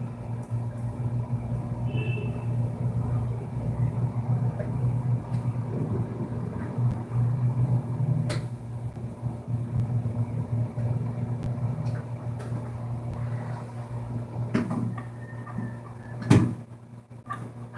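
Steady low hum, with a few sharp clicks and a louder knock near the end as a small phone circuit board is handled.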